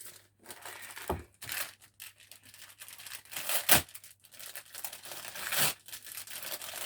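Packaging being torn open and crinkled by hand, an uneven rustle with a couple of sharper cracks.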